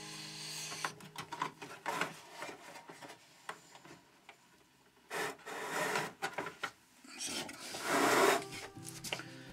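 Wooden Warré hive box being handled: a hand rubbing and sliding over the wooden top bars, with scrapes and light knocks. The loudest scrapes come about five, six and eight seconds in.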